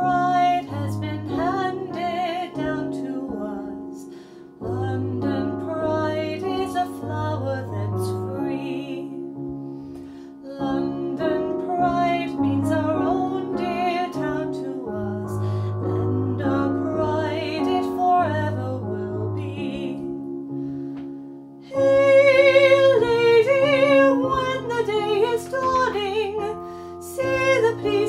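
A woman singing to her own piano-voice accompaniment on a Roland electric keyboard, with sustained chords and low bass notes under the vocal line; it grows louder about three-quarters of the way through.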